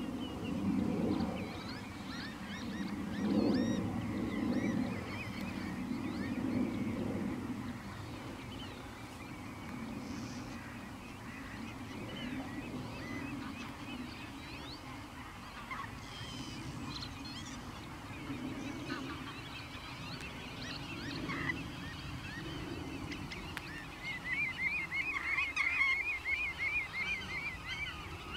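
Birds calling outdoors: small birds chirp throughout, with a series of lower, longer calls in the first third and a fast, rapidly repeated trill near the end.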